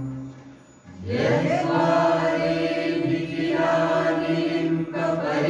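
Voices chanting a Sanskrit hymn in long, held tones. The chant fades out just after the start, the voices come back in about a second in, and they hold the notes with a short break near the end.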